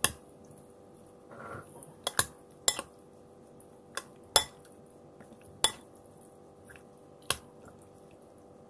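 Cutlery and dishes clinking on the table during a meal: about eight sharp, separate clinks, two close together a little after two seconds in, over a faint steady hum.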